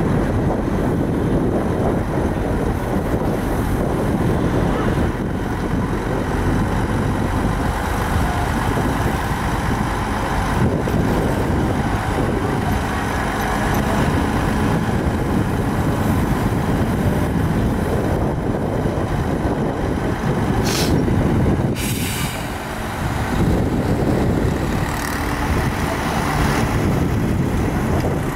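Hyundai Trago dump truck's diesel engine running steadily while its hydraulic hoist raises the loaded tipper body. Two short hisses of air come about three quarters of the way through.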